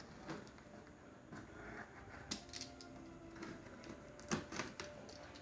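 Cardboard packaging box being opened and handled: scattered soft clicks, taps and scrapes, the loudest about two and a half and four and a half seconds in.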